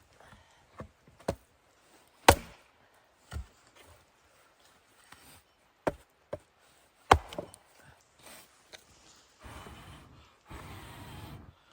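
Wood being chopped by hand: irregular sharp blows on wood, the two hardest about two and seven seconds in. Near the end come a couple of stretches of rough, scraping noise.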